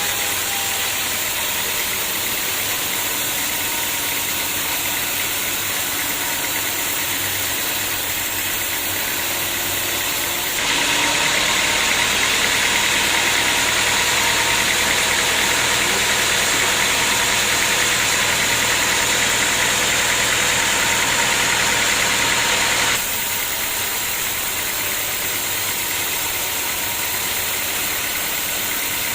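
Sawmill machinery running steadily. From about ten seconds in to about twenty-three seconds it gets louder, with a rushing, hissing noise as the saw blade cuts through the log, then it drops back to the steady running sound.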